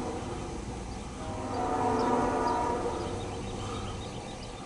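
Air horn of a CSX diesel locomotive on an approaching intermodal train, sounding a steady chord. One blast fades out about half a second in, and a second, longer blast runs from about a second in to past three seconds.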